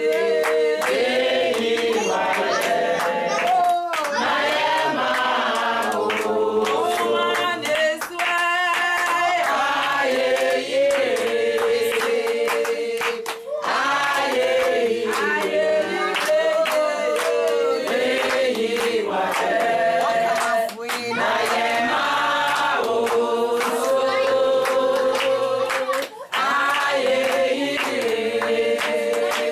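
A group of people singing a song together, with hands clapping along.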